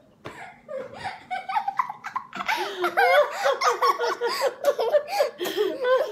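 A woman laughing in rapid fits, the laughter growing louder about two and a half seconds in.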